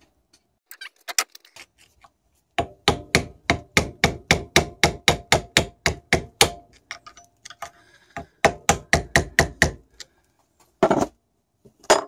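Small hammer tapping on steel against a turbocharger housing held in a vise, about five light, ringing taps a second: a run of about twenty, a pause, a shorter run, then two single taps near the end. The tapping is to work a snap ring loose on the turbo.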